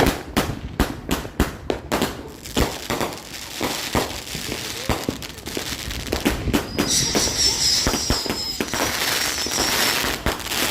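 Consumer fireworks firing a rapid string of sharp shots, several a second. Midway a high, steady whistle sounds for about three seconds over the bangs.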